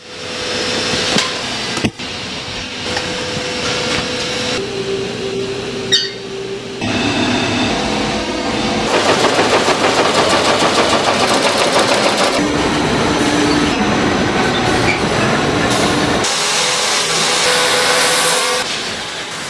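Towel factory machinery in a run of short cuts: a weaving loom clattering in a rapid, even rhythm in the middle, and an edge-sewing machine running on a towel near the end, with a steady motor hum under them.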